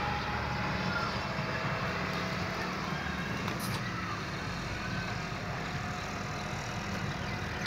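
Steady low hum under constant outdoor background noise, with no distinct event.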